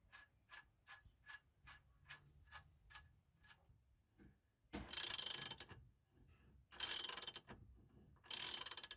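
Socket ratchet clicking as the front wheel-bearing nut is done up: a slow, even run of about two to three clicks a second, then three short, louder bursts of rapid clicking in the second half.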